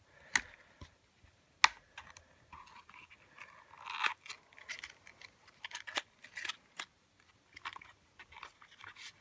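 Small cardboard knife box being opened and handled by hand: a few sharp clicks and taps, with rustling of the packaging for a second or two near the middle.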